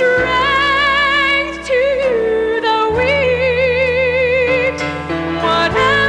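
A gospel song: a solo voice holds long notes with wide vibrato over sustained instrumental accompaniment. The bass and chord change about three seconds in and again near the end.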